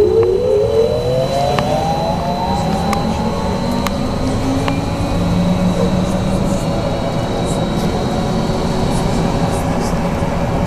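BKM 43300D trolleybus's electric traction drive whining as it accelerates, its pitch rising over the first four seconds or so. It then settles into steady running noise with a faint steady high tone.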